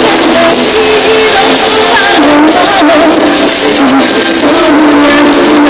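Live pop music from an outdoor concert stage's loudspeakers, loud and thin with little bass, with a melody line wandering over the band accompaniment.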